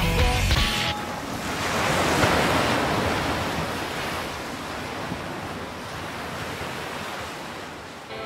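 Ocean surf: a wave breaking, swelling about two seconds in and then slowly washing out. Rock music cuts off just before it.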